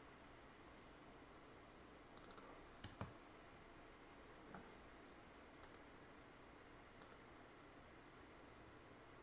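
Computer mouse and keyboard clicks over faint room tone. There is a quick run of clicks about two seconds in and a louder pair just before three seconds, then a single click and two spaced pairs of clicks over the next few seconds.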